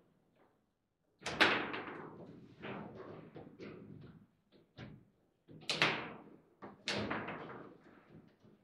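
Table football in play: the ball is struck hard by the rod figures and bangs off the table. Three loud cracks, the loudest about a second in and two more near the six- and seven-second marks, with lighter clacks of the ball, figures and rods between them.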